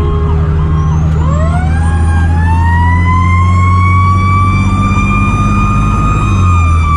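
Fire truck siren rising in pitch about a second in, then holding a long high wail that starts to fall near the end, over a shorter electronic siren tone repeating about twice a second. The truck's engine drones steadily underneath.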